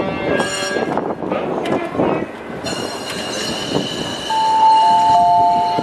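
Toyama Chiho Railway streetcar running by: a high steady whine sets in about three seconds in, then a two-tone horn sounds for about a second and a half near the end, the loudest thing here.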